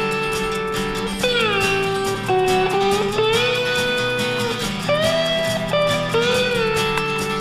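Background music: a guitar melody with notes that slide up and down between held pitches, over a steady lower accompaniment.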